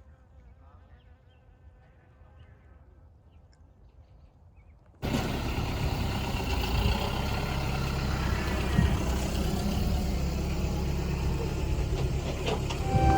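Faint low background, then an abrupt switch about five seconds in to the steady noise of a vehicle running, with a low engine hum under broad road or wind noise.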